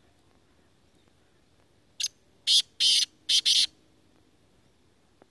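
A black francolin giving its harsh call: four short notes in quick succession about two seconds in, the last two the longest.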